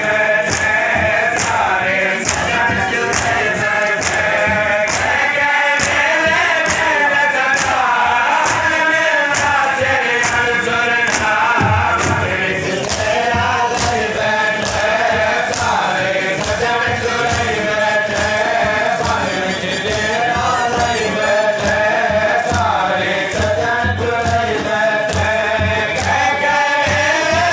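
Men's voices chanting a noha in a wavering melodic line, with sharp, evenly timed slaps of hands on bare chests (matam) keeping the beat at about one and a half strokes a second.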